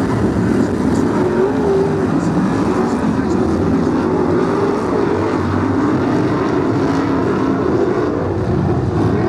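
A pack of BriSCA F1 stock cars racing, their V8 engines running loudly together in a continuous din, the pitch wavering up and down as the cars accelerate and lift off.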